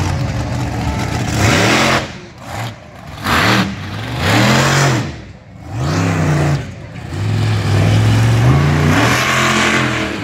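Monster truck engine revving in repeated short bursts, its pitch rising and falling about six times, with steadier running at the start and for a couple of seconds near the end.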